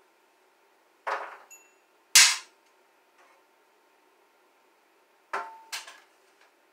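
A few sharp clacks and knocks of tools and parts being handled: one about a second in with a brief metallic ring after it, a louder one just after two seconds, and a quick pair near the end.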